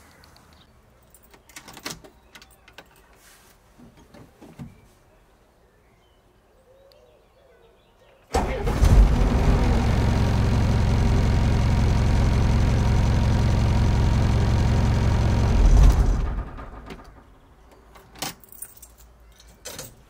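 Keys jingle and click at the ignition, then the 1983 Mercedes 508D's diesel engine comes in abruptly about eight seconds in and runs loud and steady, swells briefly, and is switched off and runs down. A few more key clicks follow near the end.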